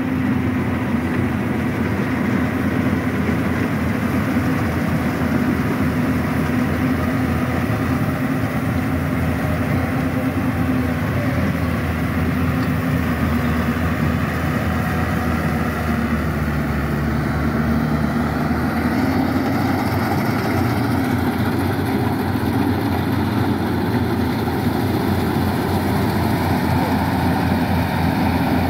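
Yanmar YH880 combine harvester's diesel engine and threshing machinery running steadily under load while harvesting rice: an even engine hum with a few steady held tones.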